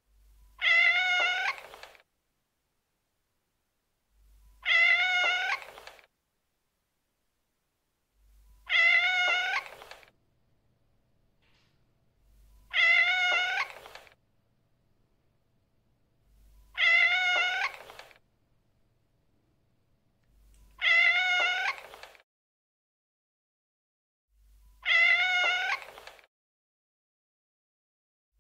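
A cat meowing: the same drawn-out meow with a wavering pitch, repeated seven times about every four seconds, each call lasting about a second and a half.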